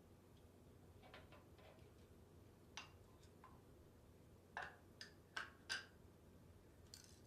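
Scattered light clicks and knocks of transmission parts being handled during disassembly, the loudest a quick run of four about four and a half to six seconds in.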